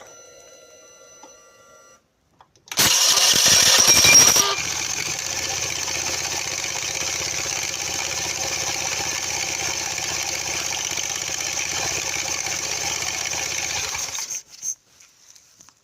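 Honda Vision 110 scooter's single-cylinder engine cranked by the electric starter, catching after about two seconds, then idling steadily for about ten seconds before it is switched off. The starter pinion engages cleanly because its worn pinion holder is held pushed up by hand.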